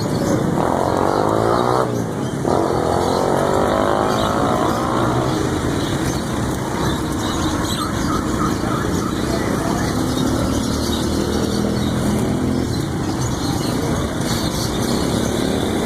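Steady engine noise of street traffic, motorcycles among it, with a sliding rise and fall in pitch during the first few seconds.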